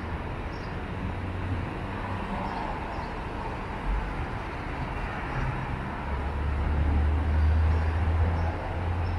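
Outdoor city street ambience: a steady low rumble with a hiss over it, swelling louder about six seconds in and easing off near the end.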